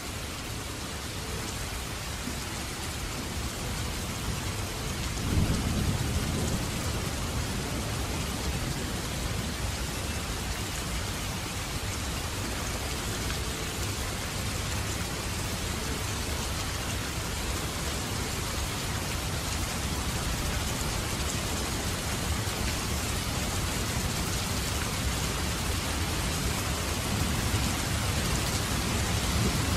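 Steady rain falling. A low roll of thunder rumbles about five seconds in, and another builds near the end.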